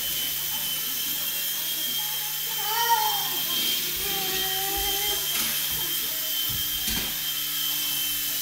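Century UK Nano CX micro coaxial RC helicopter's small electric motors and rotors whining steadily in flight. A child's voice comes in briefly about three seconds in and again around four to five seconds in.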